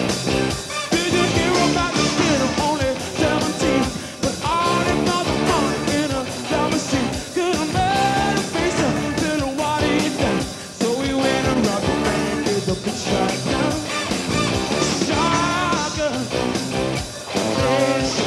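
Rock band playing live, with a voice singing over the band.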